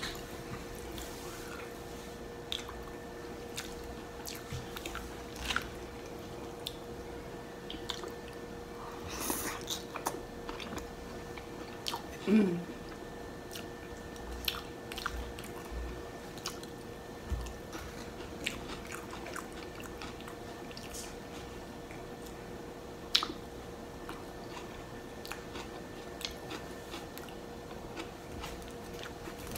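Close-miked chewing and small wet mouth sounds of someone eating loaded tater tots, with scattered light clicks of a plastic fork, over a steady faint hum.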